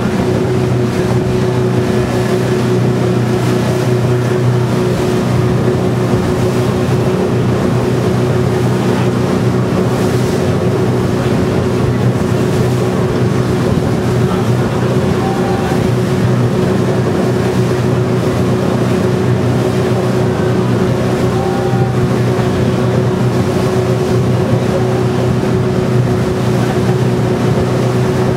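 Boat's engine running steadily under way, a constant drone with a steady hum, over a hiss of wind and water.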